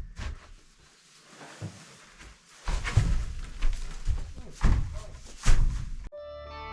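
Heavy thuds and knocks of small square hay bales being handled and dropped: a quiet stretch, then a run of about five loud thumps. Music starts abruptly near the end.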